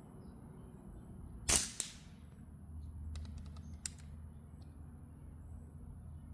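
Air rifle shot: one sharp crack about a second and a half in, with a smaller crack right after, followed a couple of seconds later by a few light clicks.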